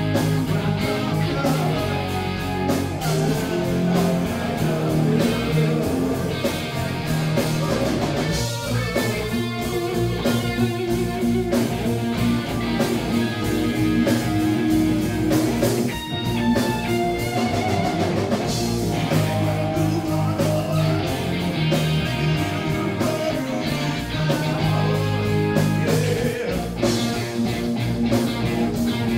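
Live rock band playing: electric guitars and electric bass over a drum kit, played loud and without a break.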